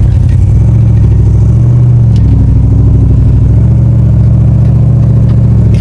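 Off-road vehicle engine running steadily at low revs: a loud, low drone with a fast, even pulse.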